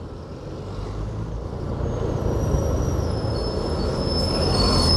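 Low traffic rumble building steadily louder, with a high metallic squeal of several held tones setting in about two seconds in and growing stronger near the end.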